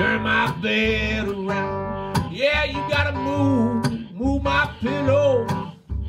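Country blues instrumental break: an acoustic guitar picking and strumming, with pitched notes that bend up and down, over the low thump of a washtub bass.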